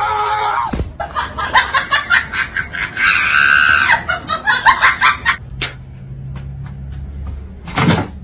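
People laughing in quick bursts, with a drawn-out high-pitched sound in the middle of the laughter.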